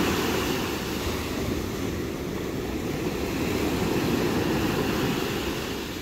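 Sea surf: small waves breaking and washing up a pebble beach, a steady rush that swells and eases.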